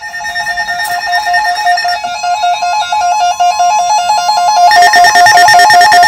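Eton weather alert radio sounding its built-in alarm: a loud electronic two-tone warble that flips rapidly between two pitches, getting louder about three-quarters of the way through. It signals that a weather warning has been received.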